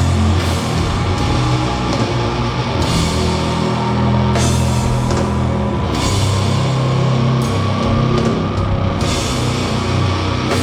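Live doom metal band playing slow and loud: distorted guitars and bass hold long, low sustained chords under drums, with a cymbal crash every couple of seconds. A faint high tone slowly rises in pitch through the middle.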